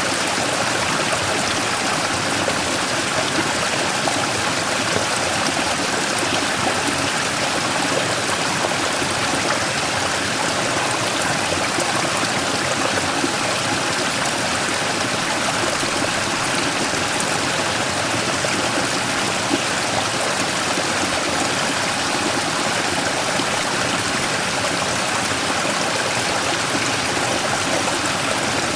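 Mountain stream flowing over and around a large rock: a steady rushing and splashing of water.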